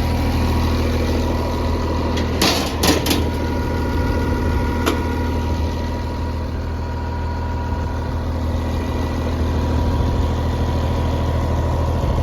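Case 2050M bulldozer's diesel engine idling steadily. A few sharp knocks come about two and a half to three seconds in, and a single click near five seconds.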